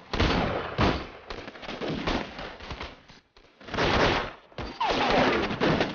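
Battle gunfire of rifle and pistol shots, fired in rapid volleys: a dense cluster at the start, another about four seconds in, and more near the end.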